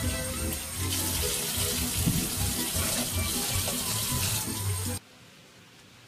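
Kitchen tap running onto cherry tomatoes in a stainless steel colander as they are rinsed by hand, with background music under it. The water sound cuts off suddenly about five seconds in, leaving only a faint hush.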